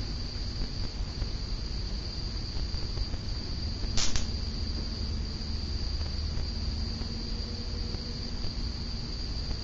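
SMC Laguna ceiling fan running with a steady low hum, under a steady high-pitched tone. One sharp click about four seconds in.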